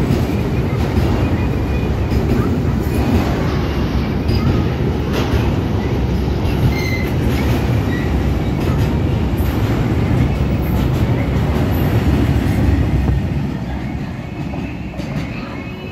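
Enclosed automobile-carrier freight wagons rolling past close by: a steady heavy rumble of wheels on rail, with a few brief high wheel squeals. The rumble fades near the end as the tail of the train goes by.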